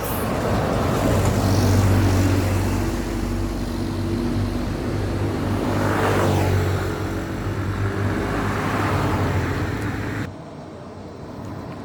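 A large coach bus driving past close by: steady engine rumble with tyre and road noise that swells and fades as it goes by, cut off suddenly about ten seconds in.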